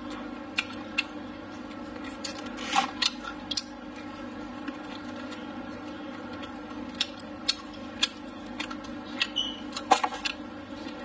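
Close-up eating sounds of pork ribs and greens: irregular wet chewing clicks and lip smacks, over a steady background hum.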